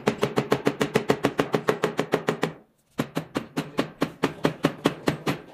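Rapid, even knocks of a wooden-handled tool working the ultrasonic welding horn as it is tightened onto the transducer, about eight a second, in two runs with a short break near the middle.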